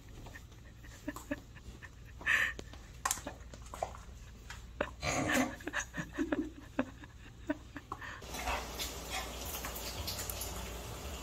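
A young puppy held in someone's arms gives a few short cries, with small rustles and clicks between them. Near the end, after a cut, a steady hiss takes over.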